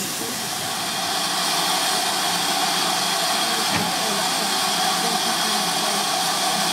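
Steady hiss of steam from GWR 2800 class 2-8-0 locomotive No. 2857 standing in steam, a little louder from about a second in, with a single sharp click near the middle.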